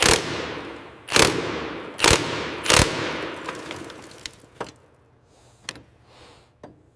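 Four loud bangs within about three seconds, each followed by a long, fading ring, then a few faint clicks.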